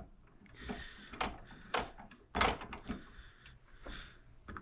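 Scattered clicks and light knocks of small metal engine parts being handled and set down on a workbench, the sharpest few in the first half.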